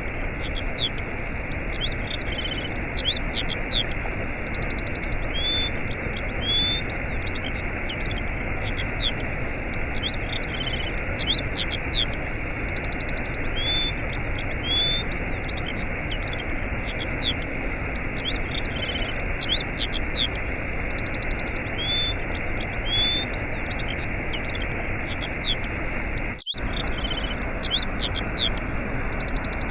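Steady rushing of a waterfall with small birds chirping and trilling over it. The same run of chirps repeats about every eight seconds, and the sound drops out for an instant near the end.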